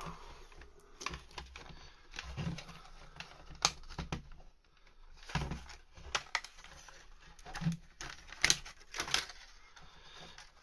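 Irregular light plastic clicks and taps, with a few soft bumps, as the thin printed dial faces are lifted and peeled off a Ford Focus mk2 instrument cluster's plastic housing.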